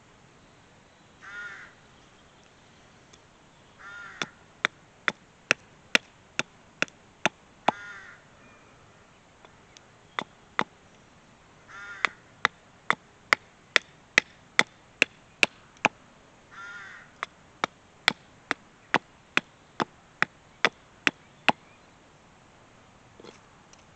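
A hatchet chopping into a small stick on a wooden chopping stump, in runs of sharp knocks about two to three a second. A crow caws five times, once before the chopping starts and then between the runs.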